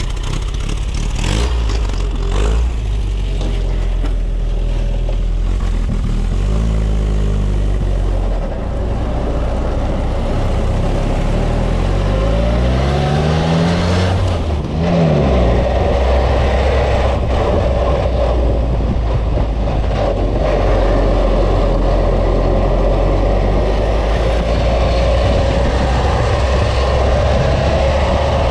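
Vintage military jeep's four-cylinder engine pulling away and accelerating, revving up through the gears with a brief drop at each shift about 8 and 15 seconds in, then running steadily at speed, heard from the open passenger seat.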